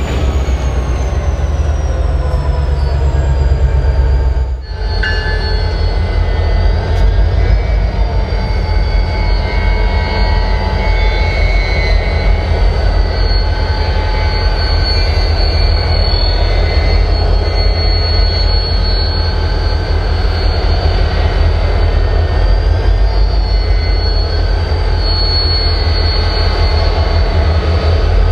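Freight train of diesel locomotives and hopper cars running, with a low engine rumble and a steady high-pitched wheel squeal over it. There is a brief dip in loudness about five seconds in.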